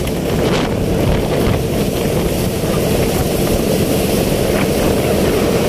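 Steady rumble of a vehicle on the move, with wind buffeting the microphone, heard from on board.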